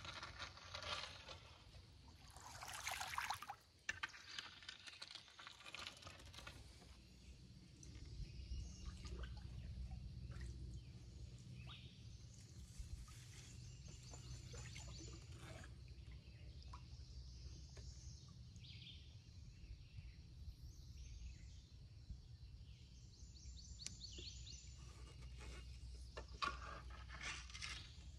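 Shallow creek water splashing and trickling as a small skiff is paddled along, with a brief louder splash a few seconds in. A steady low rumble sets in about eight seconds in, and faint bird calls come now and then.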